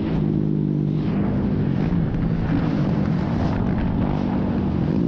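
Motorcycle engines running steadily at riding speed, with the engine note shifting slightly in pitch.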